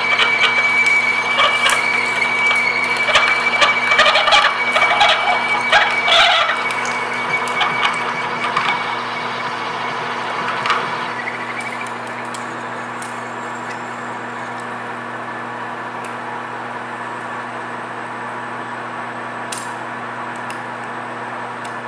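A PM1660 manual lathe drilling 6061 aluminum with a 1 3/16-inch HSS taper-shank twist drill: a steady high whine with dense crackling as chips break off, easing off and fading out about twelve seconds in. After that the lathe runs on with a steady hum.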